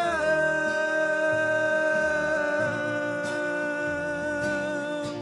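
Gospel singing: a long held final note of a song over a low instrumental accompaniment, easing off near the end.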